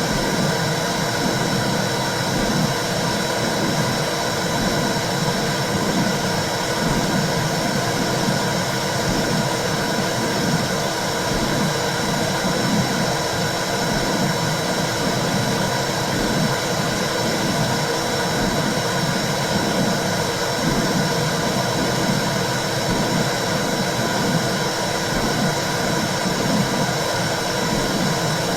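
Womb sound for soothing babies: a steady whooshing noise with a low pulse that beats about once a second, like a heartbeat heard from inside the uterus.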